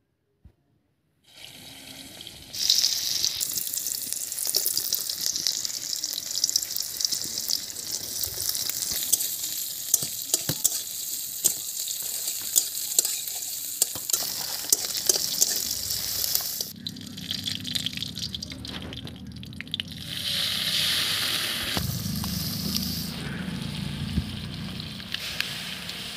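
Hot oil sizzling hard in a black iron karahi, frying sliced onions, with small spoon clicks against the pan, starting a couple of seconds in. In the last third the sound turns to a lower, bubbling rush as the spinach-and-masoor-dal mixture is poured into the hot oil.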